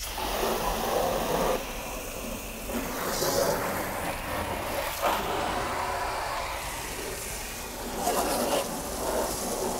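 Water spray rinsing grime off a truck's fender well and undercarriage: a steady hiss of water striking the surfaces, rising and falling as the spray is moved around.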